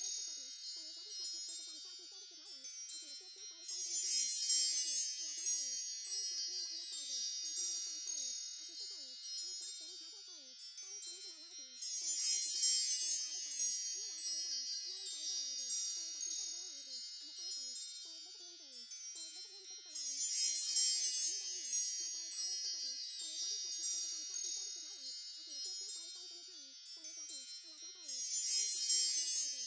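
Wind chimes tinkling continuously in a looped track that swells about every eight seconds.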